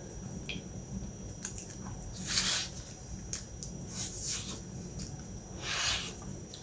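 Close-up mouth sounds of biting into a milk pie: three short bites about two, four and six seconds in, the first the loudest, with small wet clicks of chewing between them.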